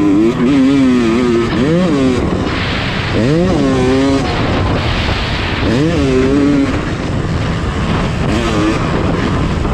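Dirt bike engine revving hard on a motocross track, its pitch climbing and dropping again about five times as the throttle is opened and shut, over a steady rush of noise.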